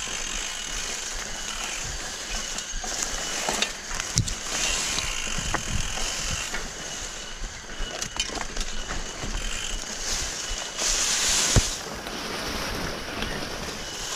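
Mountain bike riding over a dirt singletrack: tyres crunching over the ground, with rattling and knocks from the bike over bumps, and a loud hiss about eleven seconds in.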